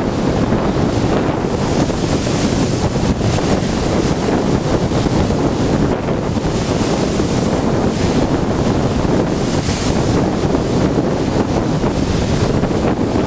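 Storm waves crashing and rushing against a sea groyne, with strong wind buffeting the microphone. The surf swells into louder hissing crashes a few times.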